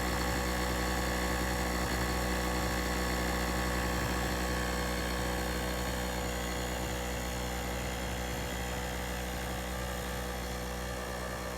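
Small 800-watt (900-watt max) portable generator running steadily under its engine's even drone, gradually getting quieter as the listener walks away from it.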